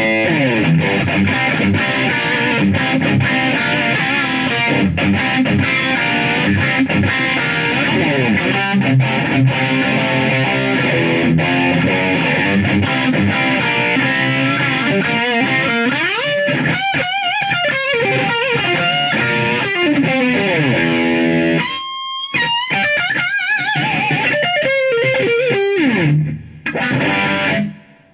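Electric guitar played through the Roland GR-D's 'Distortion 1' preset, a classic rock distortion tone: heavy distorted riffs and chords with slides, moving after about twenty seconds to single sustained lead notes with wide vibrato, then stopping just before the end.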